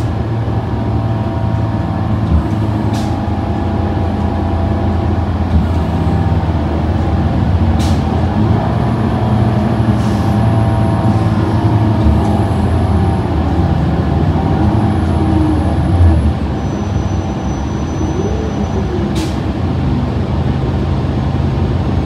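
Cabin noise of a New Flyer Xcelsior XD40 diesel bus under way: the Cummins L9 engine and Allison transmission run steadily under road noise. A few sharp clicks sound through it.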